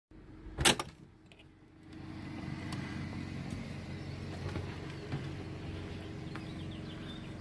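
A sharp click under a second in, then a steady low engine hum with several held tones that starts about two seconds in.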